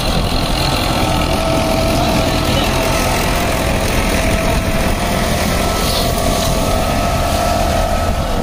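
Farmtrac tractor's diesel engine running steadily under load while pulling a mouldboard plough through the soil.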